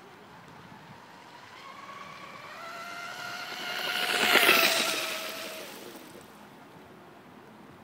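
Electric RC racing catamaran with an LMT 1535/8 brushless motor on a 4S LiPo and a 34 mm brass propeller making a fast pass: its high motor whine grows louder, peaks about four and a half seconds in with a hissing rush, then fades as it moves away.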